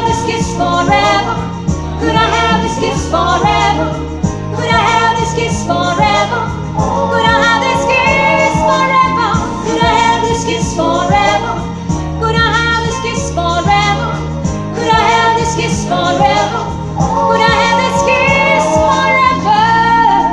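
A woman singing over a music backing track with a steady bass pattern.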